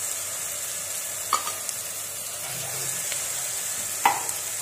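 Chopped onions and whole spices sizzling in hot oil in an aluminium pot, with a steel ladle clinking sharply against the pot twice as they are stirred.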